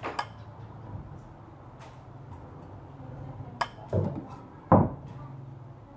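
Metal ladle clinking against a ceramic soup bowl while soup is served: a couple of knocks right at the start, then a cluster of three more about two-thirds through, the last the loudest. A low steady hum runs underneath.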